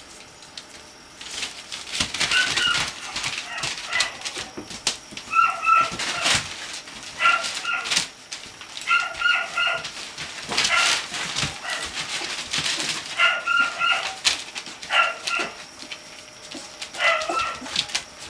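Cocker spaniel puppies giving short high squeaky yelps in quick groups of two or three while playing with an adult dog, over the crackle and rustle of newspaper under scrabbling paws.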